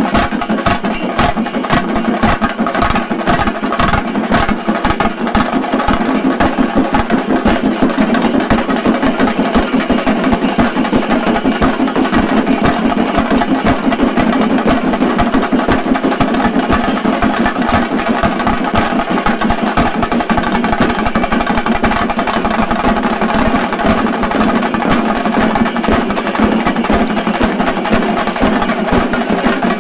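Shinkarimelam troupe's chenda drums beaten in a fast, dense, unbroken rhythm, loud throughout.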